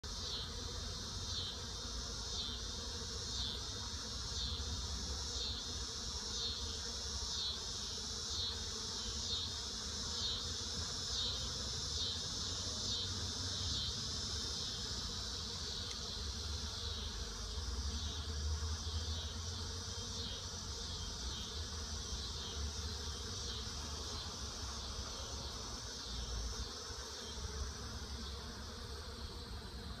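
Cicadas calling in a steady high-pitched chorus that pulses about once a second and eases off near the end, with honeybees buzzing around the hive entrances.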